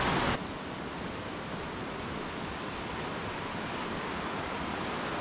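Steady rushing of a mountain river over rocks. About half a second in, the sound cuts to a quieter, duller rush.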